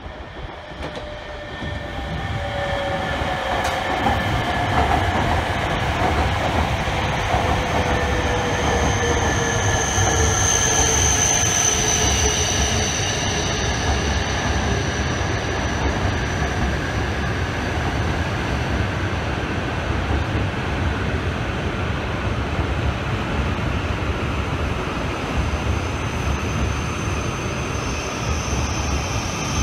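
A Tohoku Shinkansen train, an E5-series set coupled to a mini-shinkansen set, pulling into a station and slowing. It gets louder over the first few seconds, with motor whines slowly falling in pitch. A high whine comes in about eight seconds in and returns near the end.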